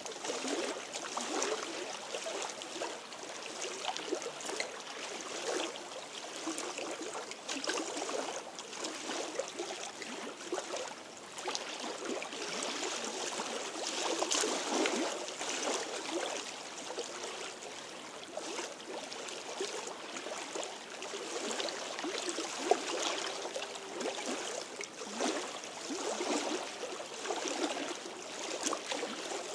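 Small lake waves lapping and splashing irregularly against the rocks and snowy shore, with one louder slap about three quarters of the way through.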